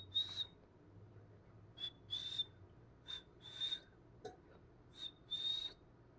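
A high whistle repeated four times, each a short note followed by a longer one at the same pitch, with an airy hiss around each note.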